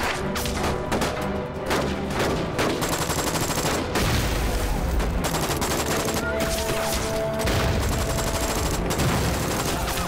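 Heavy, continuous gunfire from a film battle scene: rapid overlapping rifle, pistol and machine-gun shots, with a film music score underneath.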